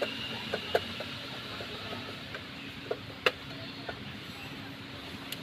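Scattered sharp clicks and knocks, the loudest about three seconds in, over a steady low hum: work going on in an engine repair shop.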